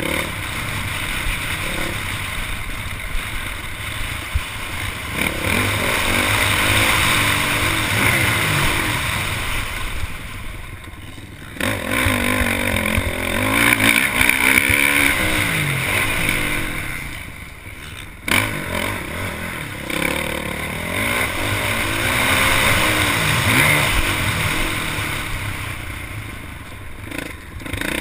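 Honda motocross bike's engine revving hard under racing throttle, its pitch rising and falling again and again through the gears. The throttle is chopped and the engine drops off briefly three times, about a third of the way in, past halfway and near the end, each time snapping back to full power. A steady hiss of wind noise runs under it.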